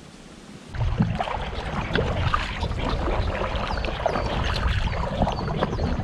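A small outrigger boat being paddled: a paddle splashing through the water with clatter on the hull, over a steady low rumble. It starts abruptly about a second in, after a brief quiet stretch.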